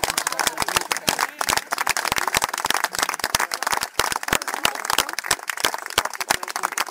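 A crowd applauding, many hands clapping densely.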